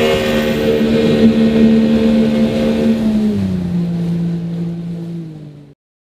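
Mercury outboard motor running steadily at speed. About three and a half seconds in, its note steps down in pitch, then it fades out and cuts off sharply just before the end.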